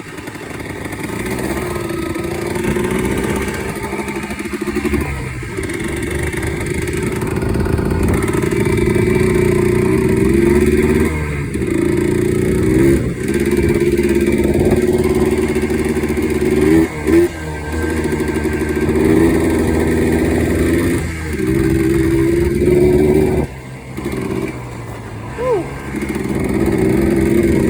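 Yamaha Blaster quad's two-stroke single-cylinder engine, running on a freshly rebuilt top end, riding under load with the throttle opened and closed, the revs dropping briefly several times and picking up again.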